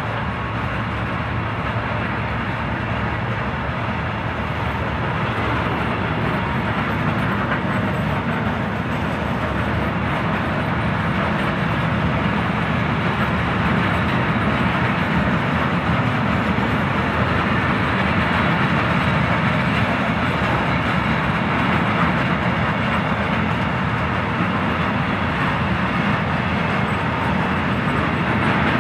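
Long freight train of covered hopper wagons rolling past on the near track: steady wheel-on-rail noise that grows slightly louder.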